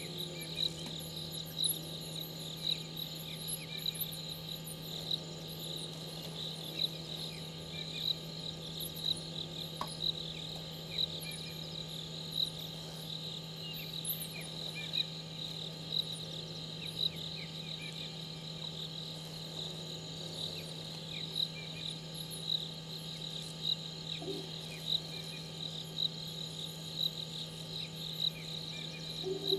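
Crickets chirping in a steady night chorus, a fast pulsing trill with louder peaks about once a second, over a constant low hum.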